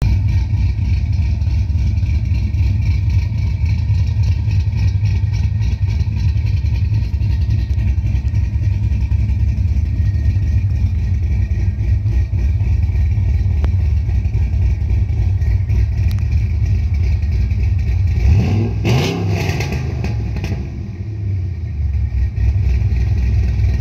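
2006 Cadillac CTS-V's 6.0-litre LS2 V8, fitted with an MS3 camshaft, Pacesetter headers and Flowmaster mufflers, idling steadily at the exhaust. About eighteen seconds in it is revved once, rising in pitch for a couple of seconds, then drops back to idle.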